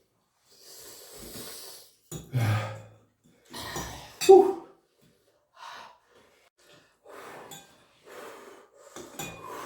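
A person breathing hard through the mouth, with hissing breaths and two louder gasps in the first half, then quieter breaths: the reaction to the burn of extremely spicy ramen noodles.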